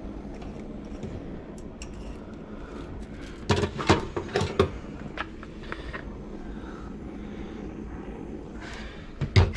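Tools being handled on a sheet-metal tabletop: a cluster of sharp knocks and clatters about halfway through, and one loud knock near the end as a handheld butane torch is stood on the table. A steady low hum runs underneath.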